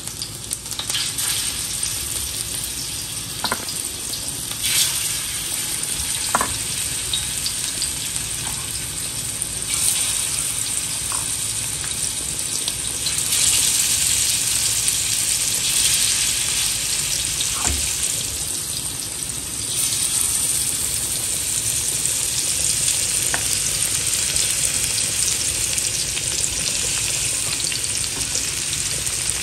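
Masala-marinated taad fish pieces sizzling as they shallow-fry in hot oil in an iron tawa, with a few short clicks. The sizzle grows louder as more pieces go into the pan.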